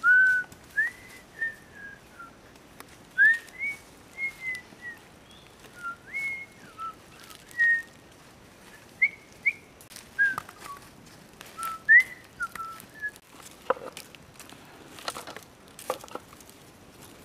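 A run of short, high whistled notes, most of them sliding upward, spaced irregularly about a second apart. Near the end come several sharp cracks and snaps.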